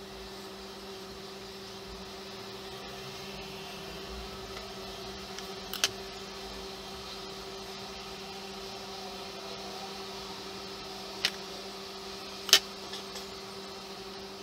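Steady low electrical hum with three sharp taps, about six, eleven and twelve and a half seconds in, the last the loudest.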